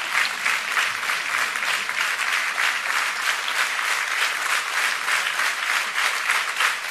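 A large audience applauding, many hands clapping steadily and densely without a break.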